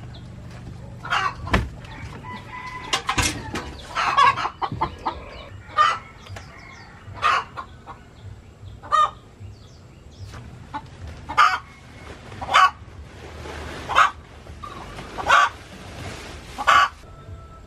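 Chickens clucking: a run of short calls, coming about every one and a half seconds after the first few, with two sharp knocks near the start.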